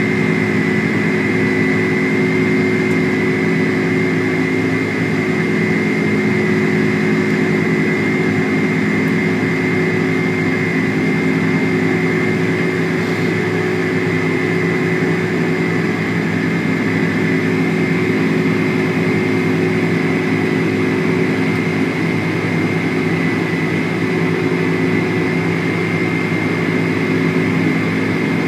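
Engines of a Boeing 747-400, four General Electric CF6-80C2 turbofans, heard inside the cabin from behind the wing at climb power: a steady drone with a high whine over a low hum.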